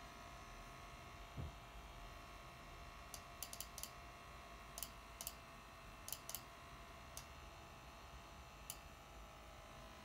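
MSI GS65 laptop's cooling fan running with a faint steady whir and thin whine tones. About a dozen light, sharp clicks come scattered through the middle, and there is a soft low thump about a second and a half in.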